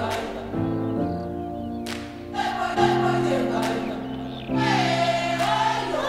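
Background music: a choir singing over held chords that change every second or two, with a few sharp percussive hits.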